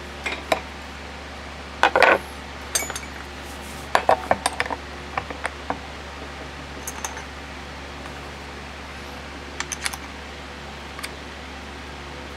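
Small metal brake caliper parts clinking and knocking against each other and a hard surface in irregular little clusters while being handled, over a steady low hum.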